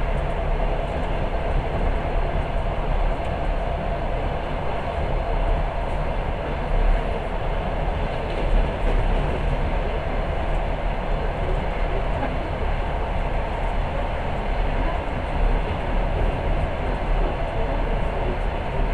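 Passenger train running, heard from inside the carriage: a steady rumble of wheels on rails, with a faint steady hum and a few slightly louder knocks.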